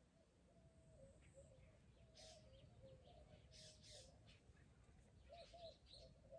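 Faint birdsong: one bird repeats a wavering mid-pitched call over and over, with a few short higher chirps scattered through it.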